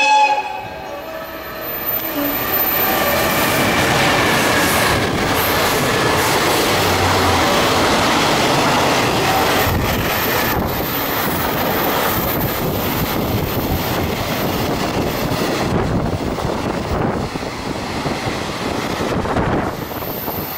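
Container freight train hauled by an EF210 electric locomotive passing at speed close by: a steady, dense rush of wheels on rails, building up about two seconds in, with a few sharp clacks from the wagons going over the rail joints. A loud tone cuts off at the very start.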